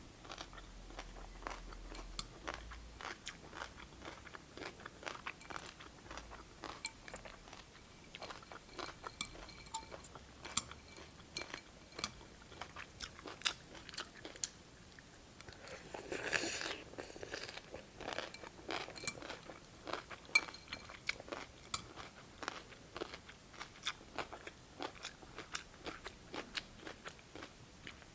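Close-up chewing and crunching of cucumber slices from cold cucumber soup: many sharp, irregular crunches. A little over halfway through comes a longer noisy sound lasting about a second, the loudest moment.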